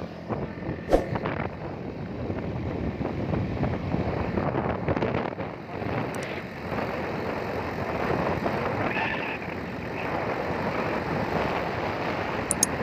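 Rushing wind and road noise from a small motorcycle on the move, with wind buffeting the microphone. There is a sharp knock about a second in.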